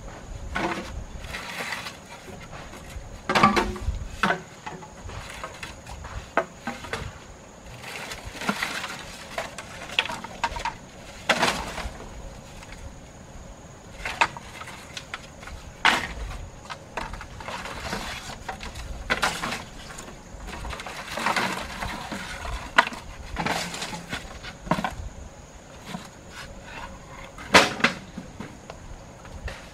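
Lengths of bamboo pole knocking and clattering against each other as they are picked up from a pile and handled, in irregular knocks, the loudest a few seconds in and near the end.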